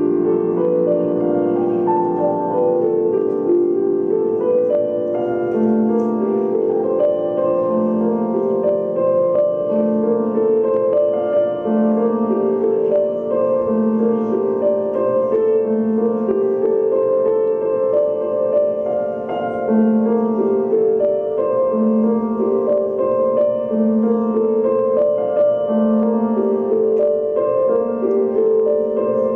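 Instrumental piano music: flowing note patterns over a low note that comes back about every two seconds.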